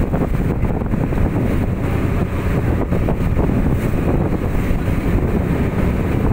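Wind buffeting the microphone, over the steady low noise of a small motor boat under way on open sea.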